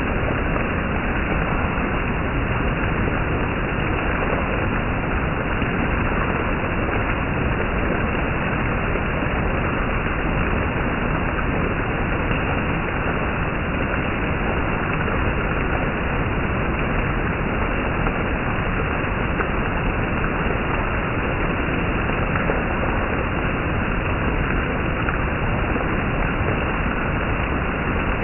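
Heavy monsoon rain falling steadily, an even, unbroken hiss.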